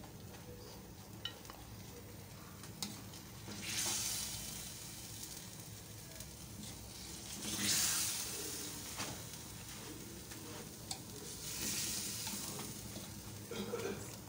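Hot chops curry still sizzling in the wok after the flame is off, as it is spooned out into a glass dish. The hiss swells louder three times, about four seconds apart, with a few clicks of the metal spoon.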